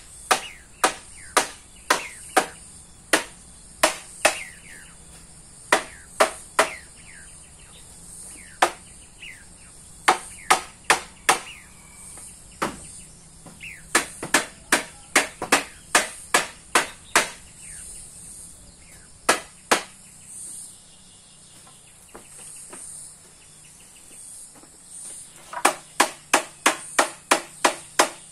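Repeated sharp strikes, like chopping or hammering, about two a second in runs, pausing a few seconds after the middle and coming faster near the end. A steady high shrill of insects runs underneath, with a few short falling bird chirps in the first half.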